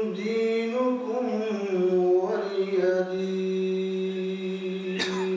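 A man reciting in a slow melodic chant, holding long drawn-out notes that bend slowly in pitch. A brief click near the end.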